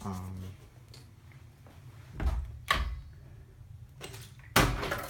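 Wooden interior door being handled: two knocks about two seconds in, then a louder bang starting near the end.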